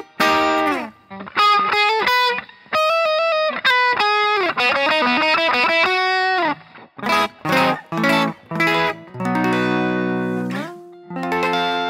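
Electric guitar played on its own: a lead line of single picked notes with string bends and slides in the first half, then short choppy chords and a held chord that rings out near the end.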